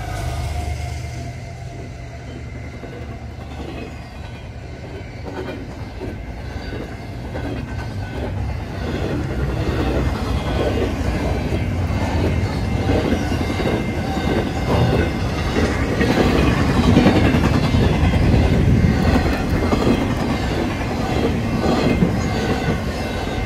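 Double-stack intermodal freight train passing at speed: steady rumble and clatter of steel wheels on the rails with rapid clicking over the joints. It eases off in the first few seconds after the locomotives, then grows louder as the stack cars go by.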